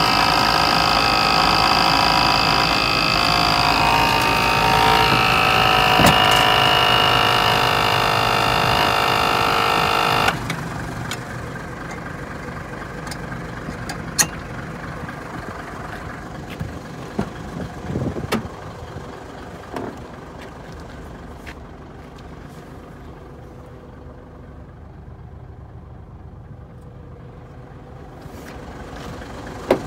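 Mitsubishi Fuso Super Great truck's diesel engine idling, loud and dense with steady whining tones when heard up close at the engine. About ten seconds in it turns sharply quieter and goes on as a low steady run, with a few light knocks.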